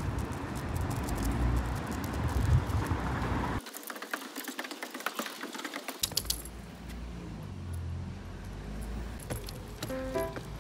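Low road rumble inside a moving car. About three and a half seconds in it cuts to a stretch of light clicking and jingling. Music with short plucked-sounding notes starts near the end.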